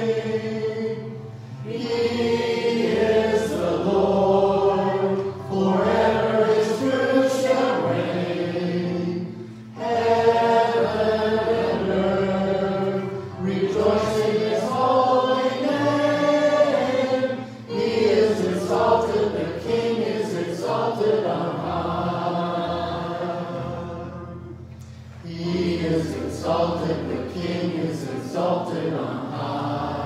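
Congregation singing a praise song together in long phrases, with short breaks between them.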